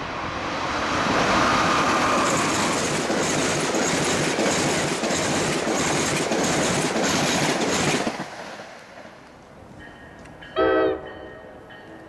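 A train passes close by at speed, its wheels clicking steadily over rail joints, and the sound cuts off suddenly about eight seconds in as the last car clears. Near the end comes one short, loud horn blast.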